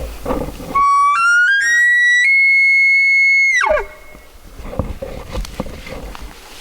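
Elk bugle: a high, clear whistle that climbs in steps, holds at its top note for about a second and a half, then drops sharply, lasting about three seconds and loud.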